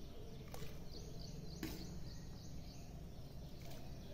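A ladle of peas going into gravy in a steel pressure cooker: two sharp clinks of the ladle against the cooker, the first about half a second in and the second a second later. Underneath is a steady low background hum, with faint high chirping around the middle.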